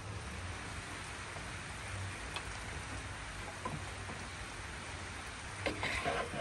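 Steady rain falling, an even hiss. About six seconds in, a few knocks and scrapes as food is served from a wooden bowl onto a plate with a wooden spatula.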